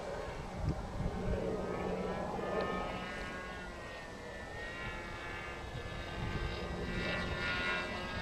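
Muffled OS FX .61 two-stroke glow engine of a radio-controlled model airplane in flight, a steady high engine note whose pitch drifts down and up slightly as the plane moves about.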